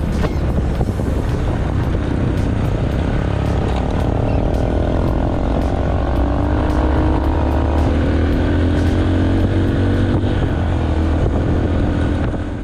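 A motor engine running steadily, loud and close, its pitch shifting up and down for a few seconds in the middle; it cuts off suddenly at the end.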